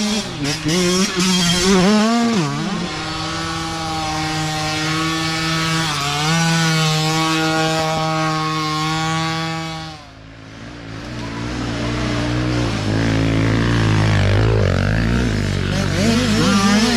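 Mini dirt bike engines running hard as the bikes ride past on a dirt trail. One engine wavers in pitch, then holds a steady note for several seconds before dropping away suddenly. Another engine note then builds and rises as more bikes come up the trail.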